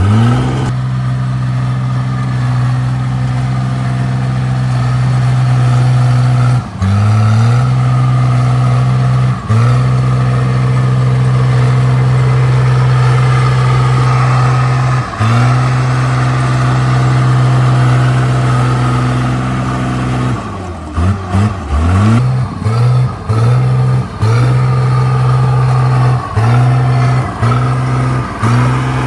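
Komatsu D37P bulldozer's diesel engine running steadily under work. Its note drops briefly and climbs back a few times, then in a quicker series of dips and recoveries over the last third.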